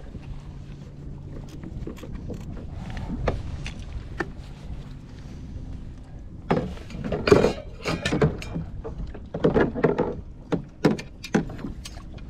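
Knocks and clatter on a kayak as a gaffed California halibut and its wire trap rig are handled and the hooks worked free, over a low rumble of water and wind. The knocks come thick and irregular from about halfway in.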